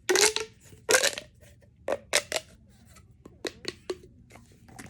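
A fidget toy being worked by hand: two short, noisy squeaks about a second apart, then a run of sharp clicks in two quick groups of three.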